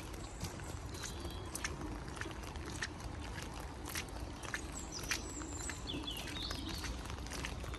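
Outdoor ambience in rain: a steady low rumble and hiss with many irregular sharp taps, and birds giving short high chirps, a cluster of them about five to seven seconds in.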